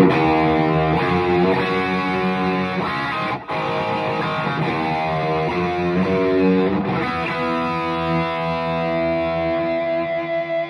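Gibson Les Paul R9 electric guitar played through a 3rd Power Kitchen Sink amp: a run of strummed chords changing about twice a second, with a very brief stop about three and a half seconds in. From about seven seconds in, a chord is left to ring, with picked notes near the end.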